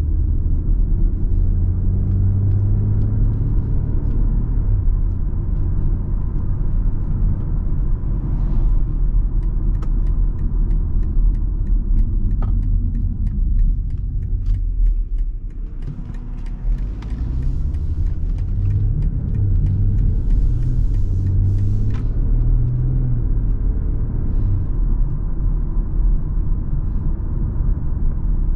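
BMW X3 M40i's turbocharged 3.0-litre inline-six engine and exhaust pulling through a winding road, its note rising and falling with the throttle. About halfway through it drops away briefly as the throttle is lifted, then builds again.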